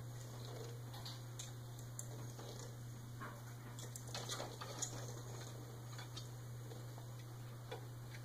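Faint scattered taps, ticks and rustles of a cat wrestling and batting a stuffed toy and a toy ball on carpet, with a cluster of taps and the sharpest click a little before five seconds in. A steady low hum runs underneath.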